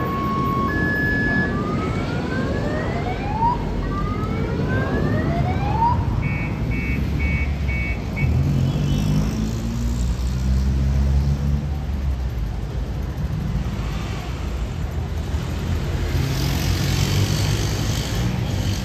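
A low, steady rumble of street traffic mixed with the jet engines of an airliner climbing out overhead. A few seconds in, a vehicle engine revs up in several rising sweeps, and a short run of beeps follows about six seconds in.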